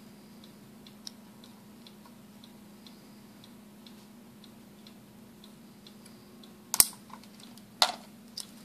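Quiet soldering of a twisted wire splice: a low steady hum and soft ticking about twice a second, then two sharp clicks about a second apart near the end as the soldering gun is taken off the joint and set aside.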